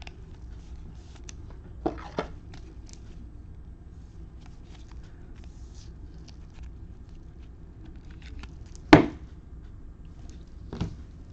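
Trading cards being handled and sorted: faint rustling and light clicks of cards and sleeves. There are a few taps of cards set down on the table, the sharpest about nine seconds in.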